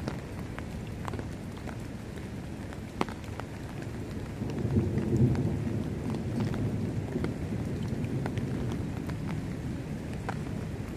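Thunderstorm: steady rain with scattered sharp drop ticks, and about four and a half seconds in a low rumble of thunder swells, peaks briefly and fades away slowly.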